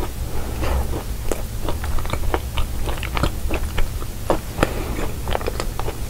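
Close-miked chewing of a cookie pie: irregular crisp crunches and small mouth clicks, several a second, as the cookie crust is bitten down.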